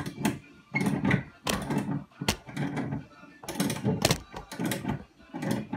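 Car jack under a router table being worked to raise and lower the router: repeated creaking mechanical strokes, about two a second, with sharp clicks among them.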